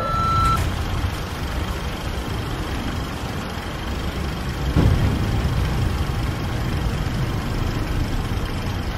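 Steady low rumbling noise, with a short beep at the very start and a deep boom about five seconds in.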